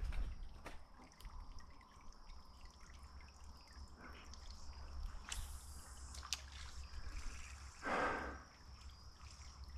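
Quiet creek-side ambience: faint trickling and dripping water under a steady high thin hum, with a few light clicks and one short louder rush of noise about eight seconds in.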